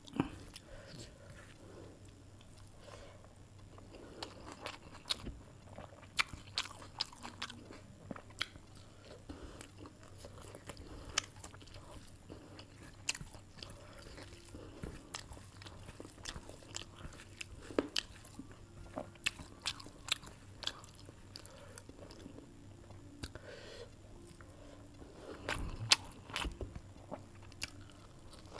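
A person eating chicken curry with rice and salad close to the microphone: chewing with irregular sharp mouth clicks and smacks. A louder cluster of clicks comes near the end.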